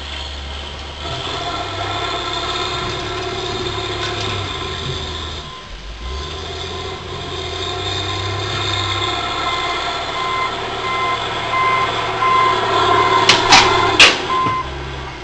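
Excavator with a Waratah harvester head working, its diesel engine and hydraulics running steadily, with a brief dip about six seconds in. A beeping alarm sounds repeatedly from about ten seconds in, and two sharp cracks come near the end.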